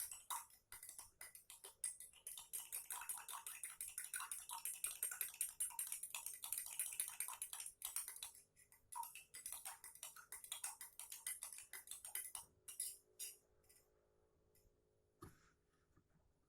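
A spoon stirring in a glass, clinking rapidly against the side several times a second; the clinking thins to a few scattered taps about thirteen seconds in, with one heavier knock near the end.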